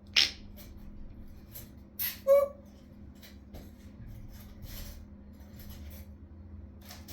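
African grey parrot making short sounds: a sharp high squeak just after the start, a brief buzzy call about two seconds in, then soft scattered clicks.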